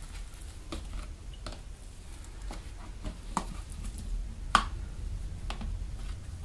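Foam slime made from PVA glue and hand foam squelching and popping as hands press into it and peel it from a plastic tub: a handful of separate short sticky pops, the loudest about four and a half seconds in.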